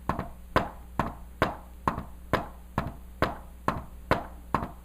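Hand tapping on a stethoscope chestpiece held in the palm: a steady run of dull taps, about two a second. The taps are a tapped-out imitation of a heart rhythm with a fourth heart sound (S4 gallop).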